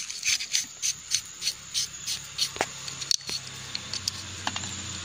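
The steel shift-fork shaft of a Honda CG125 gearbox is being worked out of the crankcase with locking pliers. It makes quick scraping strokes, about three a second, then a few sharp metallic clicks.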